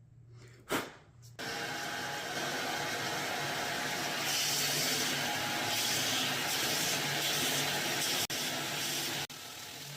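An electric power tool, switched on after a click, runs steadily for about eight seconds with an even hiss and a hum, then cuts off near the end.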